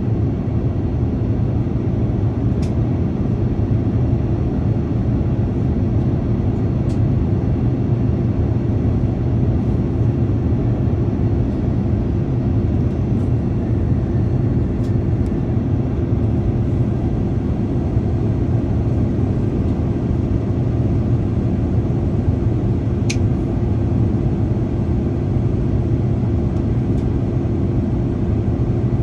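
Steady cabin roar of an Airbus A330-203 on approach for landing: the General Electric CF6-80E1 turbofan and the airflow over the fuselage, heard from a window seat over the wing, with a steady hum through it. A few faint clicks.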